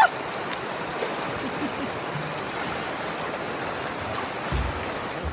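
A steady rushing noise with no clear tone, with a brief low thump about four and a half seconds in.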